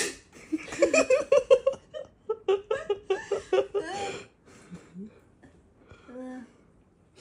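A person laughing in two bouts of quick, rhythmic pulses that die away about four seconds in.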